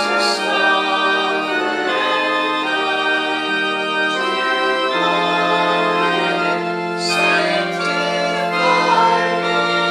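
Church organ playing slow, sustained hymn chords.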